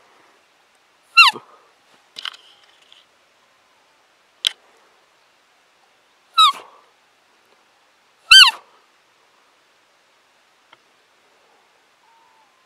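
Roe deer caller imitating a doe's fiep: three loud, short, high squeaks, each falling in pitch, a few seconds apart, with a fainter squeak and a sharp click between them.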